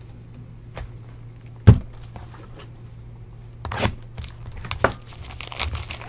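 A loud knock as a cardboard box is set down on the table. A couple of seconds later comes the crackling and tearing of plastic shrink-wrap being pulled off the sealed trading card box.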